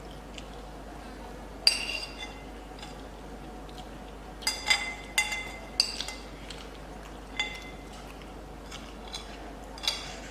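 Cutlery clinking against a dish while eating: about seven short, ringing clinks, the loudest a couple of seconds in and several close together in the middle.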